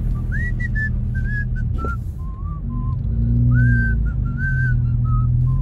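A person whistling a slow tune: single clear notes that slide up and down between pitches. Underneath is the steady rumble of the car's engine and tyres heard inside the cabin, which swells about three seconds in.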